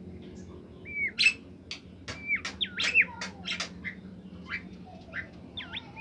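Caged bimoli songbird singing: clear whistled notes that dip and rise in pitch, mixed with short sharp chip notes, in bursts about a second in, over the middle, and again near the end.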